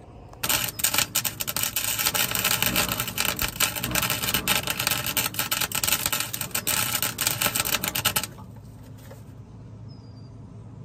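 Wire-feed welder's arc crackling steadily while spot-welding steel spacers onto a pickup's traction bars. It starts about half a second in and cuts off abruptly about eight seconds in, when the trigger is released.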